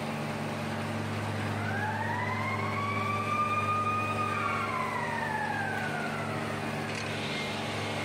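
Steady mechanical drone of a conveyor plant's machinery running. In the middle a single tone rises over a couple of seconds, holds, then slowly falls away, like a siren or a motor winding up and down.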